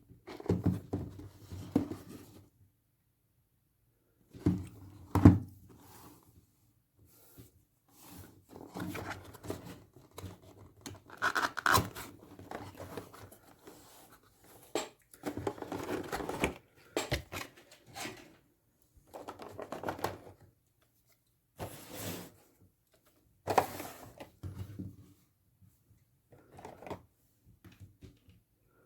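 Packaging being handled and opened: irregular bursts of rustling and tearing, with sharp clicks and knocks, stopping and starting every second or two.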